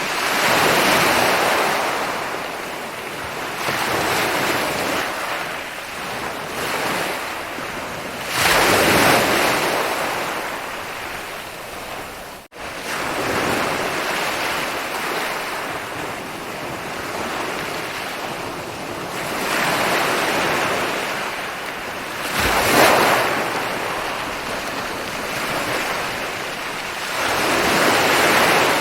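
Ocean surf: waves breaking and washing up the beach in repeated swells of noise every several seconds, with the loudest crashes near the start, about a third of the way in and about three quarters of the way in. The sound cuts out for an instant a little before halfway.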